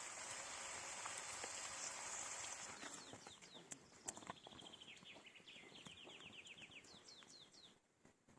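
A steady sizzle of meat frying fades out over the first three seconds. Then a songbird sings quick runs of short, falling notes.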